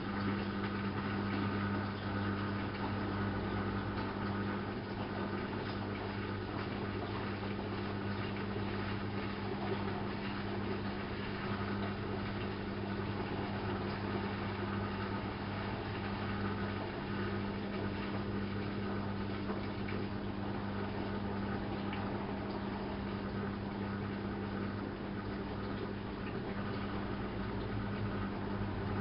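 ALASKA WA8200 E washing machine running mid-programme: a steady hum with running-water noise.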